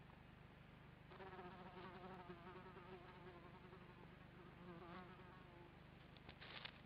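Kākāpō in the nest giving a soft, wavering, buzzy call that starts about a second in and lasts about five seconds. Near the end come a few short scratchy rustles of movement in the nest.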